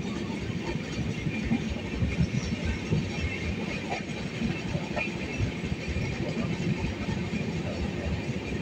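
Train running, heard from inside a coach: a steady low rumble of wheels on track, with a couple of light clicks about four and five seconds in.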